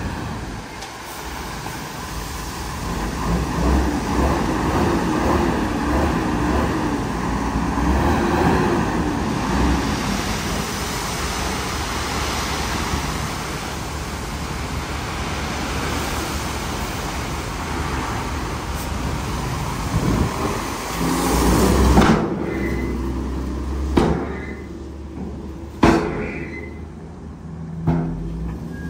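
Shacman dump truck's diesel engine running under load to power the tipper while its raised bed sheds gravel, a dense rushing noise over a wavering engine tone. About two-thirds of the way through this gives way to a lower engine rumble with a few sharp thumps.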